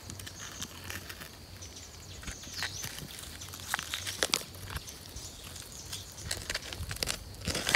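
A tortoise walking over rock: scattered light clicks and scrapes from its claws and shell, the strongest about four seconds in, with faint high chirps in the background.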